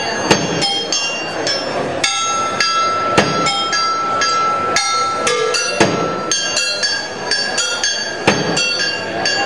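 Metal percussion struck with sticks: a fast, irregular run of sharp strikes, each leaving bright metallic ringing, with one high tone held for several seconds in the middle.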